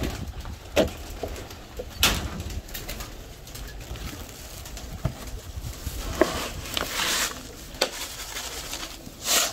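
Pigeons cooing in a loft, with a plastic bag of grain crinkling and rustling as a hand scoops feed from it, the loudest crackles about two seconds in and just before the end.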